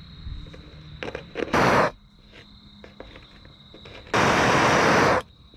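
Propane torch flame hissing in two abrupt bursts, a short one about a second and a half in and a longer one of about a second near the end, as aluminum is heated for brazing.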